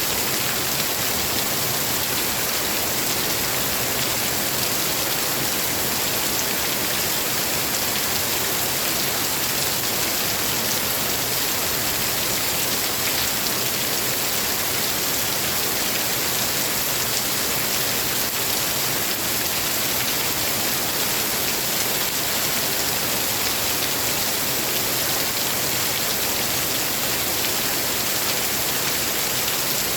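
Steady, heavy rain falling: an even, unbroken hiss with no let-up and no thunder.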